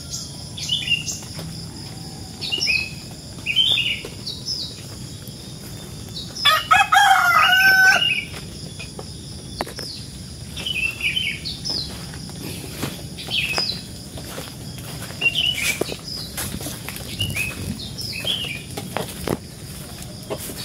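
A rooster crows once, about six and a half seconds in, a loud call lasting about a second and a half. Short bird chirps repeat about once a second over a steady high insect trill.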